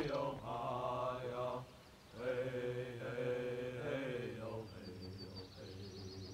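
Chanting: slow, held sung notes in two phrases with a short break about two seconds in, fading out near the end.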